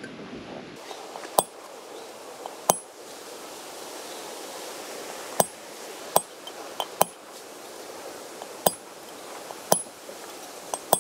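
Sharp metal-on-metal taps with a ringing ping, about eight of them at uneven intervals, from a hammer striking a steel drift set inside a Toyota Hilux front wheel hub to drive a part home during a wheel bearing replacement.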